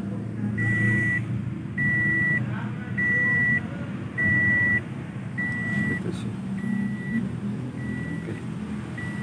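An electronic warning beeper sounding a single high tone about every 1.2 seconds, each beep about half a second long, louder in the middle and fading toward the end, over a low steady rumble.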